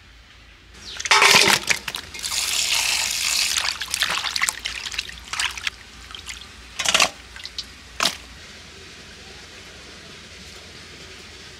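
Water splashing and trickling as small bata fish are washed by hand in a steel bowl of water and lifted out dripping. Two short sharp splashes come a little after halfway, then the water goes quiet.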